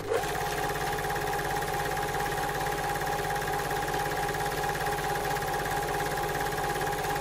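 Film projector running: a fast, even mechanical clatter over a steady whine and a low hum.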